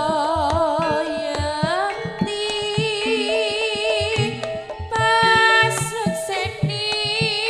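Live Javanese jaranan gamelan music: a woman sings a wavering, ornamented melody over repeated kendang drum strokes and held ringing pitched tones.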